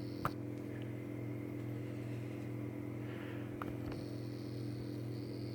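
Steady low electrical hum, with one sharp click just after the start and two fainter clicks a little past the middle.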